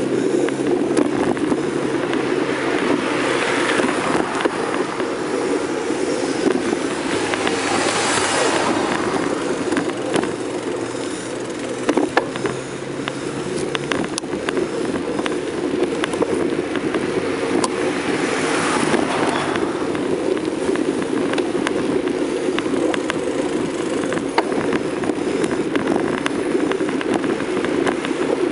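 Riding noise of a bicycle picked up by a camera mounted on it: a steady rumble and rattle from rolling over pavement, with wind on the microphone. Three times it swells briefly with a rush of noise.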